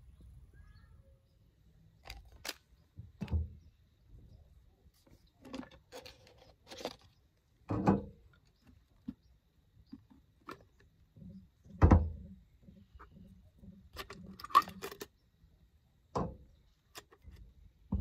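Jetboil camp stove parts being handled on a slatted metal table: the cup, lid and burner unit knocking, clicking and clattering in scattered short sounds, with two louder knocks near the middle.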